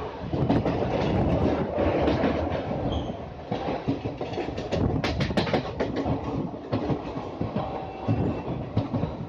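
Indian Railways passenger train running along the track, heard from aboard: a steady wheel rumble with the clickety-clack of rail joints, and a quick run of sharp clicks about five seconds in.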